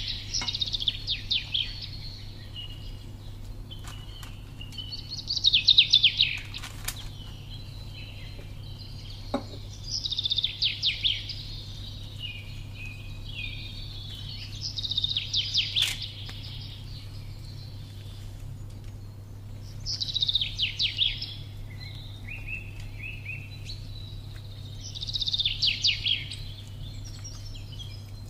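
A songbird singing short, high, rapid trilling phrases, one about every five seconds, over a steady low hum.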